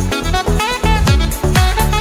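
Upbeat background music with a steady beat: a kick drum about twice a second under a bright melody.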